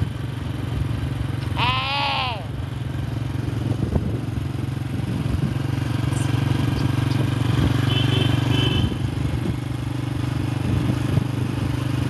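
A small engine runs with a steady low drone. About two seconds in, a short bleat-like animal call rises and falls in pitch.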